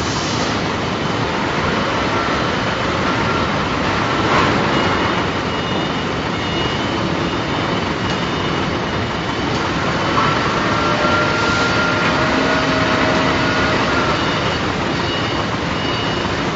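Steady, loud industrial noise of a tilting rotary aluminium-melting furnace at work. Faint metallic squeals come through the noise, clearest for a few seconds starting about ten seconds in.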